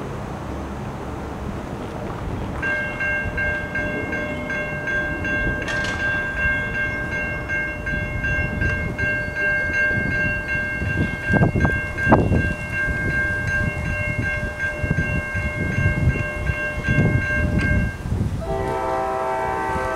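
Railroad grade-crossing warning bell ringing steadily from about three seconds in, with a low rumble underneath. It stops near the end as an approaching train's horn begins sounding a multi-note chord.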